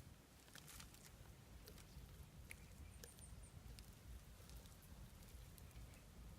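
Near silence: a faint low rumble with a scattering of faint, short clicks and ticks.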